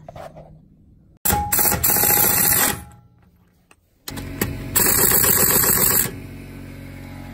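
Pneumatic impact wrench hammering on a wheel's lug nuts in two bursts of about a second and a half each, the first about a second in, the second about four seconds in. A steady machine hum follows near the end.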